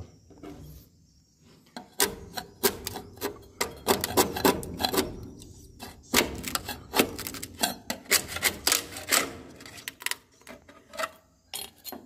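Rapid, irregular taps, clicks and scrapes against wooden nest planks, several a second, loudest between about two and eleven seconds in.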